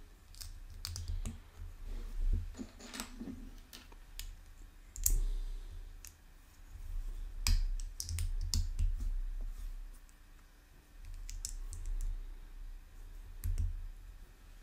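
Plastic Lego pieces clicking and snapping together as they are handled and fitted, in scattered, irregular clicks with dull low knocks of handling.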